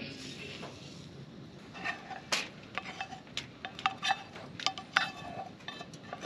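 A utensil scraping and tapping inside a frying pan to knock out scrambled eggs, making a run of sharp, ringing clinks that starts about two seconds in.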